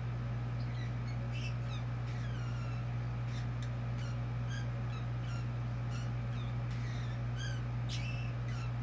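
A small caged pet parrot chattering: scattered short high chirps, clicks and falling squeaks, over a steady low hum.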